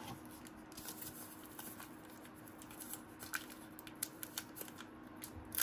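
Cardboard basketball trading cards being handled and flipped through one by one, giving faint scattered clicks and light rustles, over a faint steady hum.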